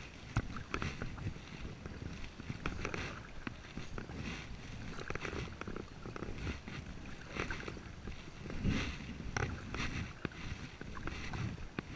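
Kayak paddling: a double-bladed paddle dipping and pulling through calm water on alternate sides, about one stroke a second, with splashes and drips.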